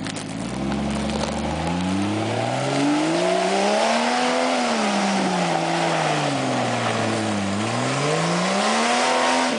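Jeep Cherokee's engine revving under load off-road: it winds up steadily for about four seconds, eases down, then winds up again, over a steady hiss.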